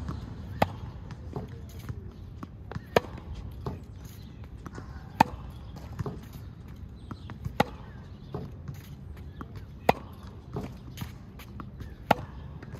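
A ball being struck back and forth in practice. A loud sharp hit comes about every two seconds, with fainter hits and bounces in between.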